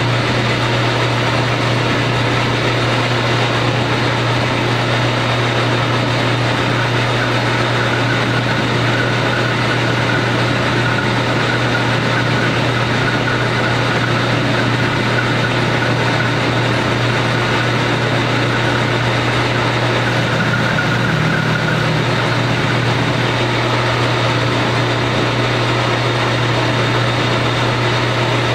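Metal lathe running steadily, its motor and drive giving a constant hum, while a carbide tool turns a nut down to size. A faint thin high whine joins through the middle stretch.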